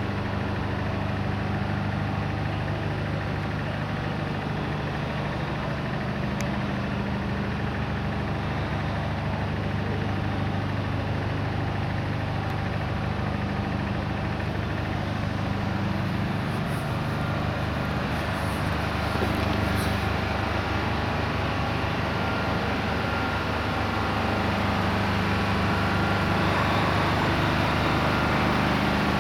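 Diesel engine of a heavy-haulage truck running at low revs, a steady deep drone as it crawls along with an oversized load, growing a little louder near the end.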